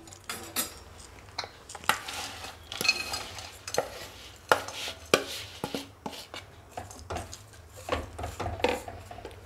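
Grated jaggery being scraped out of a bowl into a cooking pan with a spatula: a run of irregular knocks and taps of the spatula on bowl and pan, with scraping between them.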